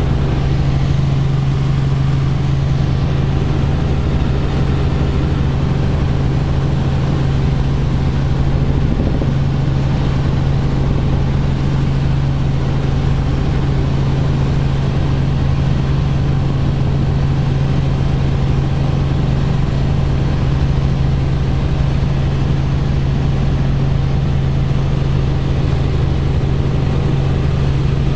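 Robinson R44 helicopter in flight, heard from inside the cabin: its piston engine and rotors make a steady, loud drone with a strong low hum that holds unchanged throughout.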